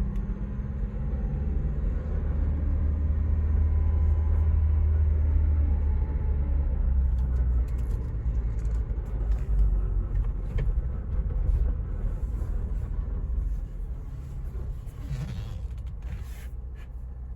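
A 2022 Ford Bronco Badlands driving, with a steady low drivetrain and road rumble that fades over the last few seconds. The owner is chasing a grinding, scraping noise that is neither brakes nor clutch.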